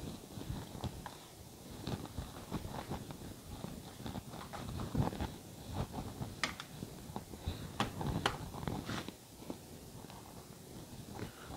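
Hands working paratha dough on a countertop: soft, uneven pats and rubbing as flour is sprinkled and spread over the rolled-out sheet, then the dough is gathered and pleated. A few sharper taps and clicks come in the middle.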